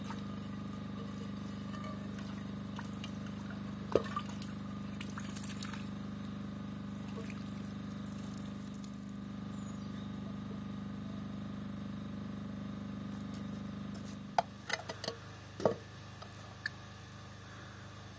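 Steady running or pouring water that stops about fourteen seconds in. A sharp knock comes about four seconds in, and a quick run of knocks and clinks follows after the water stops.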